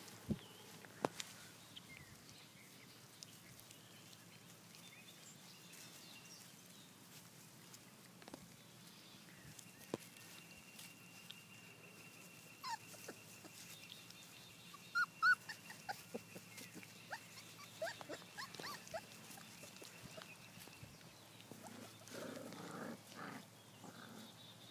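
Faint whimpers and high yips from a litter of month-old Black Russian Terrier puppies, mostly a cluster of short squeaky calls in the middle, with scattered clicks and a brief rougher stretch of lower noise near the end.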